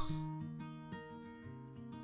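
Quiet background music of plucked acoustic guitar, single notes ringing on and overlapping.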